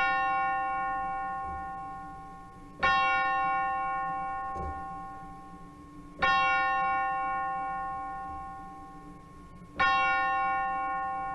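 A single church bell tolling on one note, struck about every three and a half seconds, each stroke ringing out and fading slowly before the next.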